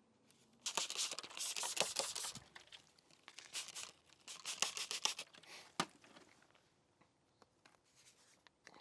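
Decal backing paper being peeled and crinkled, in two bouts of crackling, tearing rustle with sharp clicks, the first about a second in and the second from about three and a half to six seconds in.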